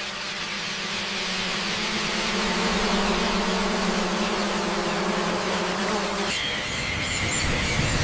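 A mass of flying foxes in flight: a dense buzzing hum over a steady low drone, growing louder. About six seconds in it gives way to high, chattering squeaks from the colony.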